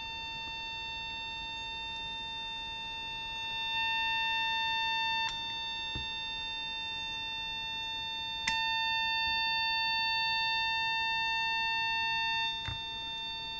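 Steady 900 Hz test tone from a smartphone signal generator, amplified by an op-amp capacitor outer-foil sniffer and played through its small 8-ohm speaker. The tone steps louder twice, about three and a half seconds in and again after a click about eight and a half seconds in, and drops after a click about five seconds in and near the end. The louder setting marks the capacitor lead that is the outer foil.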